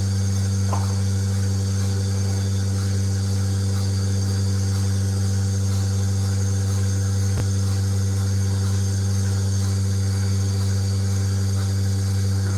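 Milking machine's vacuum pump motor running with a steady low hum.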